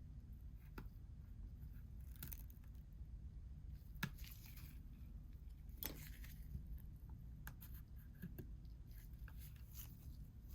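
Faint scattered clicks and short scrapes of small hand tools working at the edge of an iPhone XR, with a sharper click about four seconds in.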